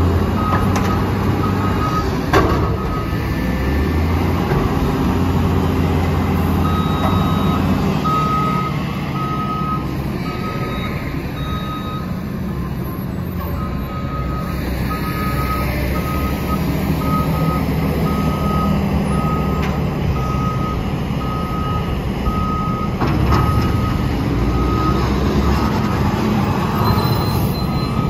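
Diesel engines of a Mack LE garbage truck and a wheel loader running, with a backup alarm beeping steadily through most of it. There is a single sharp clank about two seconds in.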